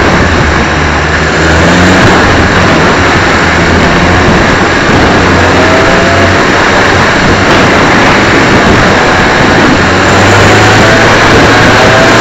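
Suzuki Swift race car engine running hard at racing speed, heard from an onboard camera mounted on the car, with heavy wind rush on the microphone. Its pitch climbs as it accelerates about halfway through and again near the end.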